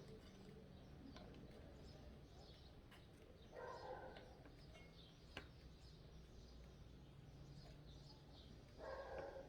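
Near silence: faint background hum with light high chirps and two short, faint pitched calls about five seconds apart.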